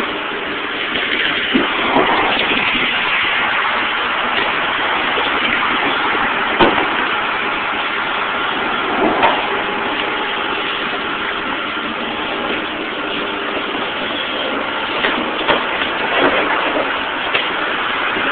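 Car wash wand spraying foam onto a car's wheel: a steady hiss with a faint hum under it and a few sharp knocks scattered through.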